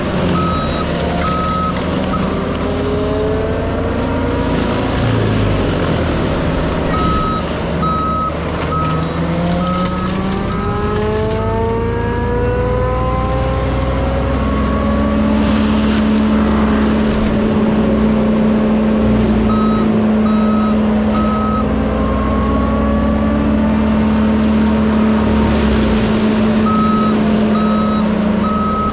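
Forestry mulching machine working, its diesel engine rising and falling in pitch under load, with a steady hum in the second half as the mulching head spins. A backup alarm beeps about twice a second in four separate spells as the machine reverses.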